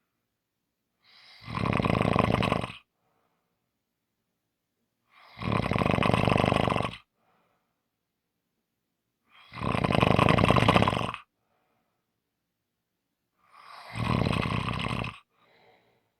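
A person snoring in a slow, even rhythm: four loud snores about four seconds apart, each lasting under two seconds, with a faint short sound after each and quiet between.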